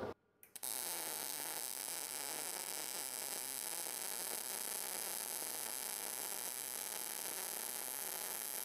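Cebora Pocket Pulse MIG welder laying a weld bead in ordinary (non-pulse) mode, the arc making a steady, even hiss that starts about half a second in.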